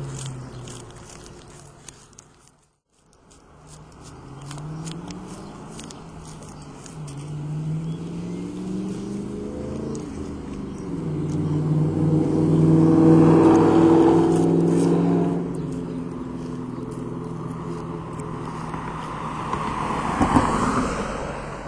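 2000 Ford Mustang GT's 4.6-litre V8 through an SLP Loudmouth exhaust, accelerating through the gears as it comes up the road, the revs climbing in steps, loudest as it passes about halfway through, then fading away. The sound cuts out briefly near the start, and there is a short thump near the end.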